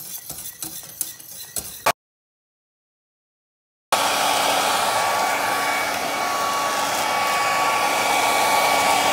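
A spoon stirring and clinking in a pot, with small clicks, then after a short break a small electric motor starts and runs loud and steady with a constant whine.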